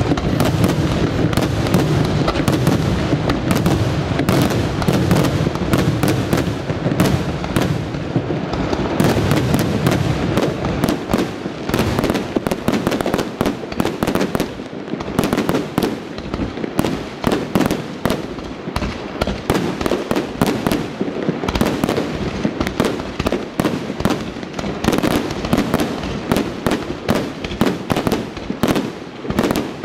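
Multibreak aerial firework shells bursting in rapid succession: a dense barrage of sharp bangs and crackle over a continuous low rumble, heaviest in the first eight seconds or so.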